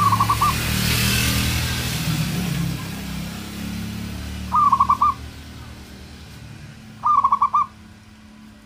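Zebra dove (perkutut) singing: three short phrases of rapid staccato cooing notes, each about half a second long and a few seconds apart. A low hum sits under the first few seconds.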